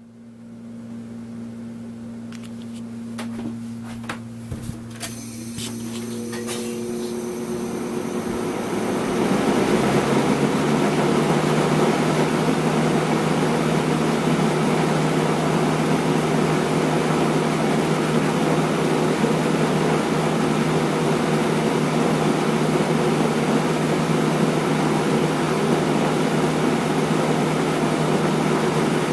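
1984 Robeson 20-inch box fan starting up: a faint motor hum and a few clicks, then the blades spin up over about ten seconds into a steady rush of air with a low steady hum.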